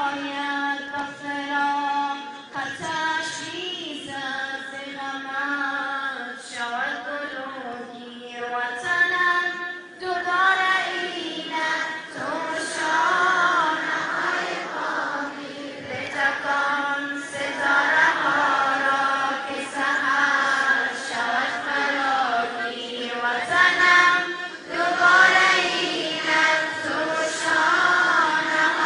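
A large crowd of schoolchildren singing a patriotic song together in unison, in sung phrases with brief breaks between them.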